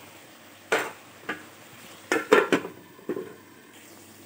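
Metal spatula knocking and scraping against a metal kadai (wok): one clatter about a second in, another shortly after, then a quick run of clatters between two and three seconds in.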